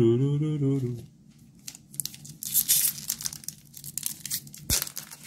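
A man hums for about a second, then a foil booster pack wrapper crinkles and tears in a run of short, sharp crackles as it is handled and opened.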